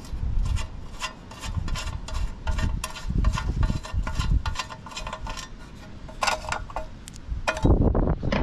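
Plastic thumb screws on a RazorBack ride-on mower's metal battery cover being turned out by hand: a string of small clicks and squeaks, with wind buffeting the microphone. A louder clatter near the end as the metal bracket comes free.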